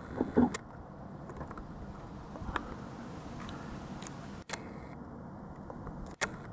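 Handling noise from the hand-held camera being zoomed: a quick cluster of knocks and rustles about half a second in, then scattered faint clicks over a steady low hum.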